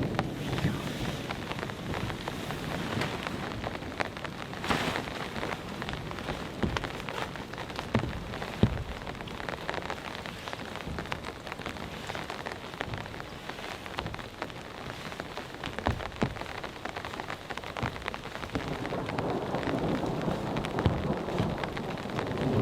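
Steady rain falling, with single drops striking close by as sharp ticks. Thunder rumbles low near the start and again building toward the end.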